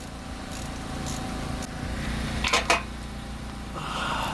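Metal clicks and clinks of a ratcheting wrench and 12 mm deep socket working a mounting bolt on a car's AC compressor: a few light clicks, then a louder cluster about two and a half seconds in, over a steady low hum.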